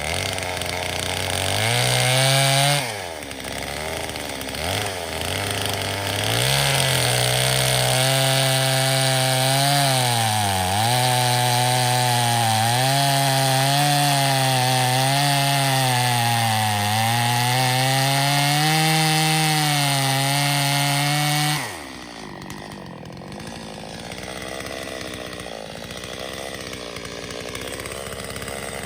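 Two-stroke chainsaw cutting into a log round at full throttle, its engine pitch sagging and recovering as the chain bites. There is a short cut near the start and a long cut in the middle, and about three-quarters of the way through the saw drops back to a quiet idle.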